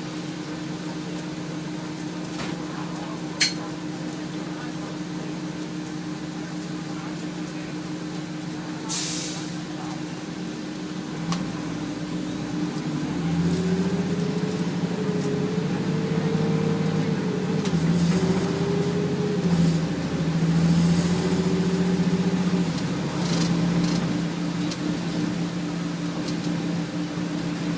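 Detroit Diesel Series 40 six-cylinder diesel in a 2000 Nova Bus LFS city bus, heard from inside the cabin. It hums steadily at first, with a short hiss of air about nine seconds in. The bus then pulls away: engine pitch climbs, drops and climbs again as the Allison B400R automatic transmission shifts up, then evens out.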